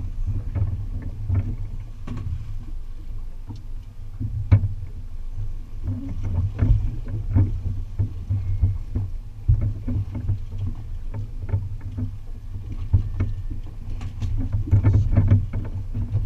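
Low rumble aboard an offshore fishing boat, with irregular knocks and clicks from gear and the hull.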